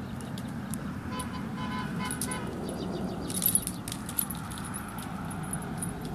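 A German shepherd puppy's collar tags jingling in small light clicks as it moves about, over a steady low outdoor rumble. A faint, brief high tone sounds about a second in.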